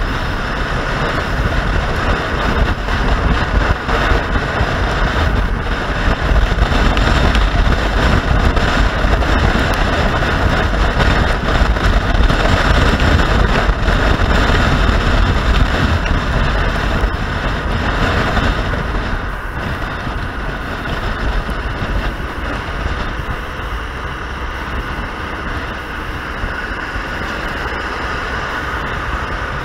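Motorcycle riding at speed: wind rushing over the microphone over the machine's engine and road noise, easing a little after about twenty seconds.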